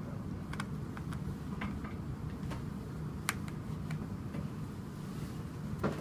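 Screwdriver turning a screw out of a plastic hair dryer shell: irregular small clicks and ticks, a sharper click about three seconds in and another near the end, over a steady low room hum.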